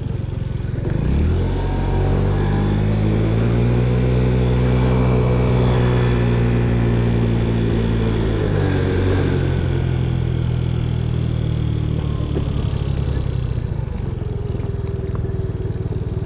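GY6 scooter's single-cylinder four-stroke engine running under way, its pitch climbing over the first few seconds, holding, then dropping off about eight seconds in as the throttle eases, and running lower and steadier after that.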